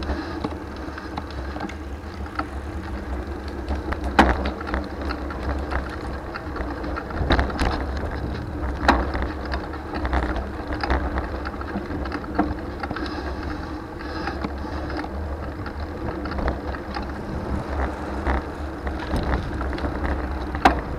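Trek Dual Sport 4 hybrid bicycle being ridden along a road: a steady low rumble, with scattered knocks and rattles from the bike going over bumps.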